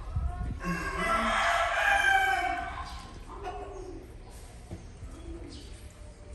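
A rooster crowing: one long crow of about two seconds, starting under a second in, then only faint sound.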